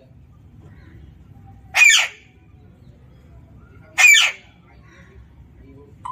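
Alexandrine parakeet giving two loud, harsh screeches, each about half a second long, about two seconds apart.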